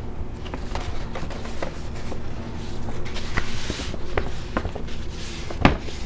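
A person moving about and handling things in a small room: scattered footsteps, light knocks and rustling, with one sharper knock near the end, over a faint steady low hum.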